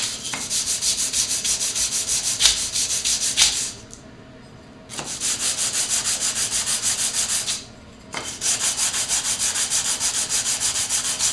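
Hand sanding: a wooden workpiece rubbed back and forth across a sheet of sandpaper laid flat on a bench, in quick even strokes about four or five a second. The sanding comes in three runs, with a pause of about a second after roughly four seconds and again after about eight.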